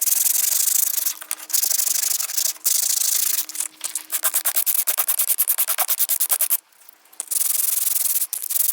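A wooden comb being sanded by hand with quick back-and-forth strokes, which stop briefly about two-thirds of the way through.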